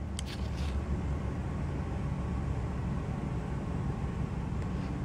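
Electric sunshade of a panoramic glass roof motoring closed: a faint, steady motor whine over a low cabin hum, with two light clicks in the first second.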